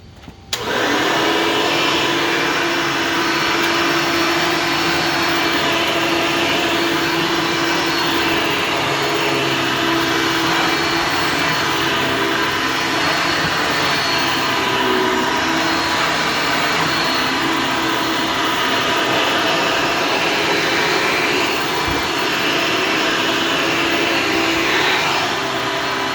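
Hoover Legacy upright vacuum cleaner switched on about half a second in, then running steadily with a constant motor whine. It is running on a newly fitted drive belt and working properly.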